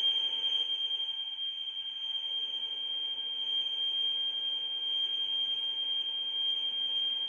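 Commodore data cassette playing through the speaker of a Texas Instruments PHP 2700 program recorder: the tape's leader tone, a single steady high-pitched tone.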